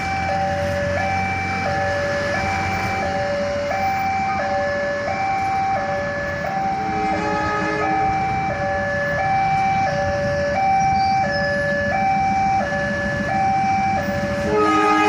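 Railway level-crossing warning alarm sounding, a steady electronic two-tone high-low chime repeating about every three quarters of a second, over a low rumble of waiting traffic. The alarm signals an approaching train. Right at the end, a train horn begins.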